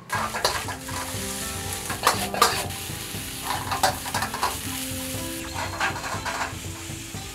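Fried rice sizzling in a hot wok while it is stirred and tossed with a metal wok ladle. The ladle scrapes and clanks against the pan again and again.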